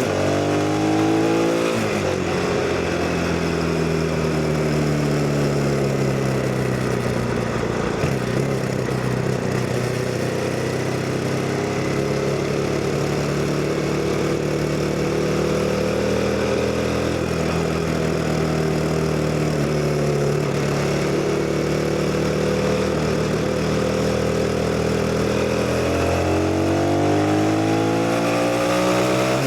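CF Moto 250NK motorcycle's single-cylinder engine running under way, with wind rush. The revs climb over the first two seconds, drop back and hold fairly steady, then climb again near the end.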